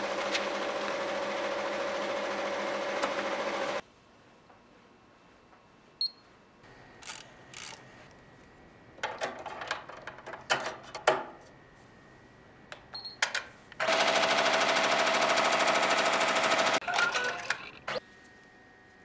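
Happy multi-needle embroidery machine stitching: a fast, even needle rattle in two stretches of a few seconds each, one at the start and one about three-quarters through. Quieter clicks and rustles of handling come in between.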